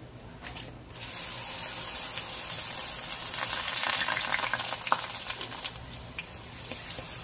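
Batter-coated kangkong (water spinach) leaves sizzling and crackling in hot cooking oil. The sizzle jumps up about a second in as the leaves go into the oil, with scattered pops, and eases off toward the end.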